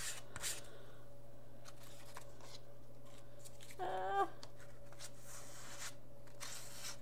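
Paper index cards being handled and rubbed with paint: short rustling and scraping strokes over a steady low hum. A brief hummed voice sound comes about four seconds in.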